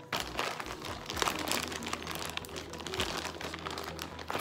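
Clear plastic zip-top bag crinkling as hands squeeze and pull slime out of it, in irregular crackles.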